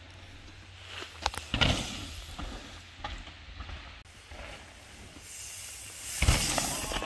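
Mountain bikes riding a loose dirt trail feature: tyres rolling and scrubbing over dirt, a few sharp knocks about a second in, then a rising rush of tyre and wind noise that turns loud near the end as a rider comes through close by.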